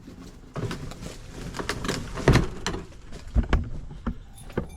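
A run of irregular knocks and clatter from objects being handled, the loudest about two and a half seconds in.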